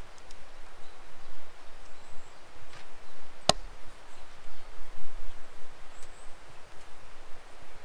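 A single sharp knock about three and a half seconds in, with a few faint ticks over a steady outdoor hiss.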